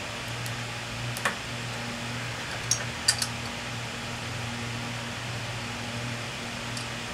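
Light metal clicks from the lathe gearbox's steel gears and shaft being shifted by hand to line up a taper-pin hole: one a little over a second in, three close together around three seconds in, and a faint one near the end. A steady low hum runs underneath.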